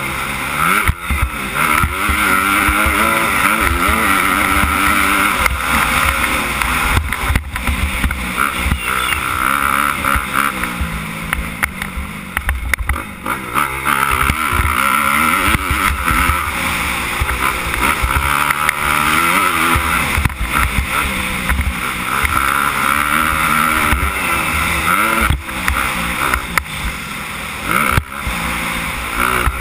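Suzuki 250 motocross bike's engine being ridden hard, its pitch climbing and dropping again and again through acceleration, shifts and backing off, with wind rushing over the helmet-mounted microphone and a few knocks from the bumps.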